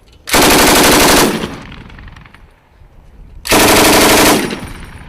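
Machine gun firing two bursts of automatic fire, each about a second long and about three seconds apart, with a short echo trailing after each.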